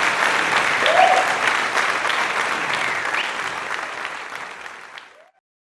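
Audience applauding, fading out and stopping about five seconds in.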